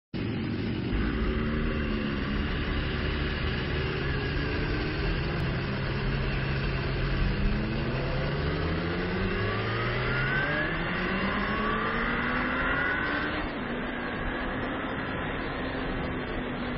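Onboard sound of a sport motorcycle's engine pulling away and accelerating up through the gears, its pitch climbing again and again, over a rush of wind noise; about three-quarters of the way through it settles to a steadier, slightly quieter note.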